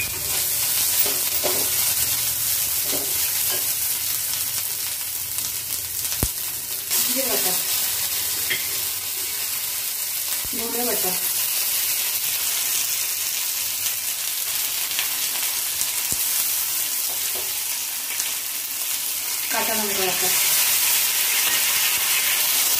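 Chopped onion, garlic and ginger sizzling in hot oil in an aluminium kadai on a low gas flame, stirred with a metal spatula. The sizzle is steady and gets somewhat louder near the end.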